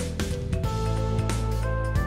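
Instrumental background music: held notes over a bass line, with light percussive strokes.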